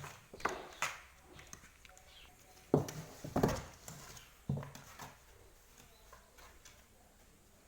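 A kitten scuffling and pouncing while it plays, giving a handful of irregular thumps and scrapes, the loudest a little under three seconds in and again about four and a half seconds in, then quieting.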